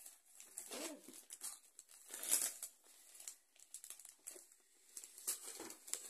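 Christmas wrapping paper crinkling and tearing as a present is unwrapped by hand, in irregular rustles with a louder rip about two seconds in.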